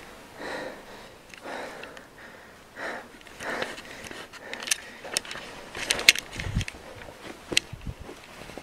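Close, irregular breathing, a noisy puff about once a second, mixed with rustles and a few sharp knocks from a handheld camera being moved about.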